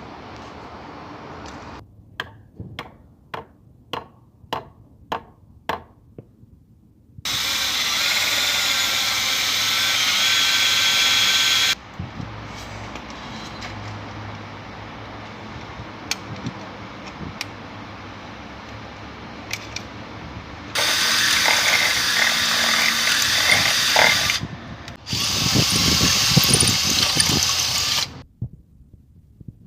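Power drill running in three bursts of a few seconds each, as a stainless steel guard plate is fixed to an outboard motor's skeg. Before the first burst comes a run of about nine even taps, about two a second.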